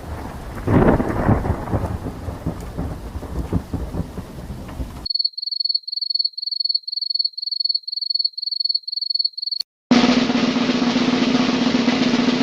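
A run of separate stock sound effects. First comes about five seconds of dense rumbling noise, thunder-like with a surge about a second in. Then a high electronic beep pulses about three times a second for roughly four and a half seconds, and after a brief gap comes a dense noisy sound with a steady low hum under it.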